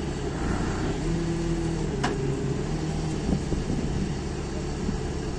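Forklift tyre handler's engine idling steadily, with one sharp metallic click about two seconds in.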